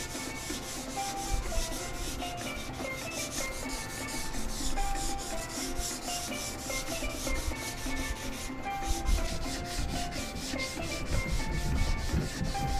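Hand sanding with 320-grit sandpaper on the primed aluminium arm of a dinghy davit: rapid back-and-forth rubbing strokes, scuffing the primer before the top coat.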